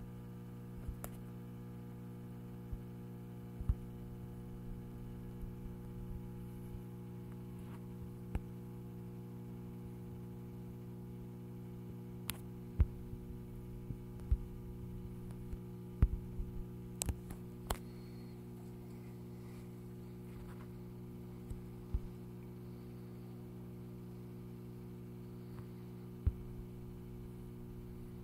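Steady electrical mains hum made of several even tones, with scattered sharp clicks and taps, a cluster of them about two-thirds of the way through.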